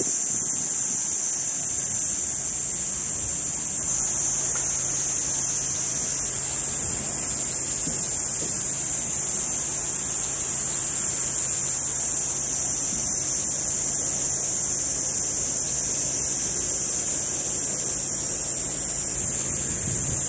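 A steady, high-pitched drone of insects calling in chorus, with a faint low hum beneath.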